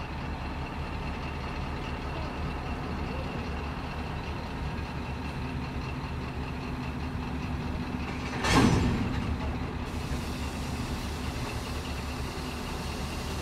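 Diesel locomotive engine idling with a steady low hum. A little past halfway, a sudden loud burst of air hiss that fades over about a second.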